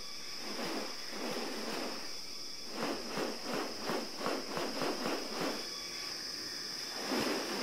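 Rainforest insects making a steady high-pitched drone, with a run of quick, even pulses at about five a second in the middle.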